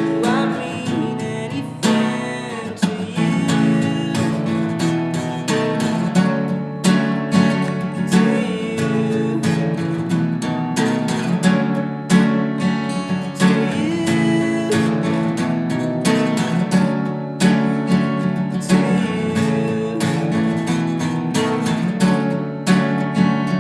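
Acoustic guitar strummed steadily, chords ringing with regular strokes.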